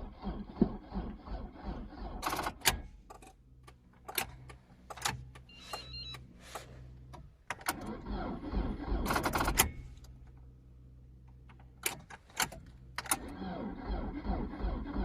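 Lada Kalina's 1.6 8-valve engine being cranked by its starter on a weak battery, churning in rapid even pulses without catching; sharp clicks and a low steady hum come between the tries.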